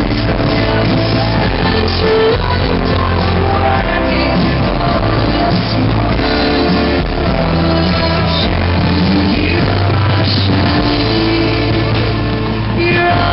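Loud amplified rock music with a singing voice, played steadily without a break.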